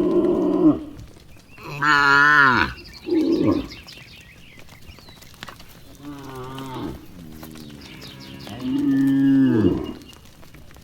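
Cattle mooing repeatedly, about five calls one after another at differing pitches, some wavering, with a long loud call near the end.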